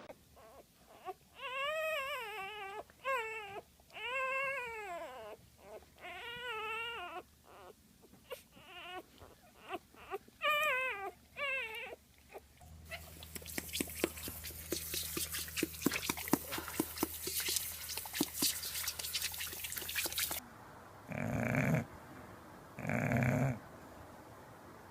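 A dog whining in a series of wavering, high-pitched cries, followed by several seconds of crackling noise and then three short rough bursts.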